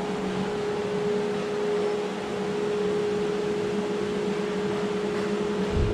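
Steady hum and rushing air of fans and dehumidifiers running, with a constant drone over it.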